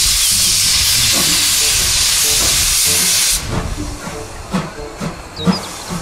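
Steam locomotive blowing steam from its cylinder cocks, a loud steady hiss that cuts off about three and a half seconds in. It is followed by short rhythmic chuffs, about three a second.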